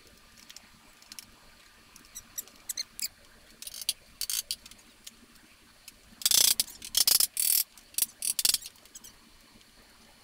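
Cedar plywood shelving being knocked together with a mallet: scattered light clicks and taps, with a cluster of louder knocks from about six to eight and a half seconds in.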